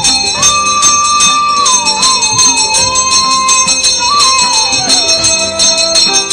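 Devotional music: a single melody of long held notes that glide up and down, over fast, steady ringing of bells.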